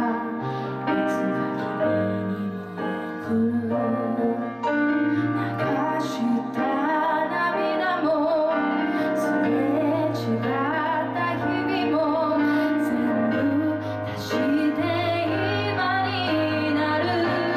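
A woman singing a song in Japanese over piano accompaniment, her voice gliding between held notes above steady low chords.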